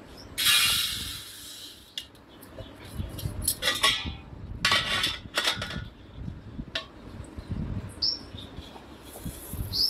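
Steel spatula scraping and clattering against a frying pan as chunks of raw jackfruit are stirred, with a longer scrape about half a second in and a few quick knocks a few seconds later.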